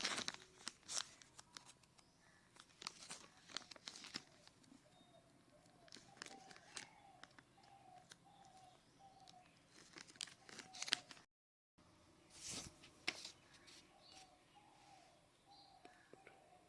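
Faint crinkling, tearing and clicking of plastic packaging and a small microphone being handled, in irregular bursts. A faint short chirp repeats about twice a second in the background for a few seconds at a time.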